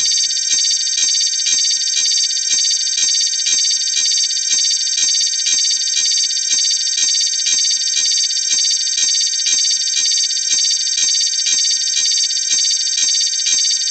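A stripped-down passage of an electronic music track: a high, ringing synth tone pulsing evenly a little more than twice a second, alarm-like, with the bass dropping out right at the start.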